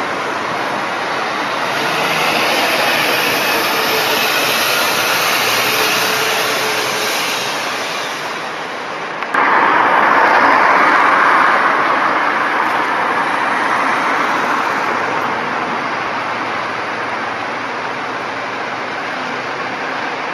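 Bus engines running at a bus station: a steady engine and traffic noise that jumps abruptly louder about nine seconds in.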